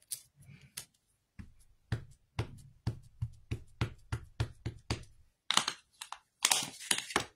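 Hands handling a plastic ink pad case on a craft mat: a run of light taps and knocks, two or three a second, then a short spell of scraping and rustling near the end.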